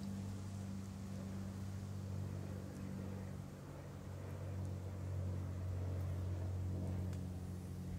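Steady low drone of a distant engine or motor, holding an even pitch throughout, with a few faint ticks over it.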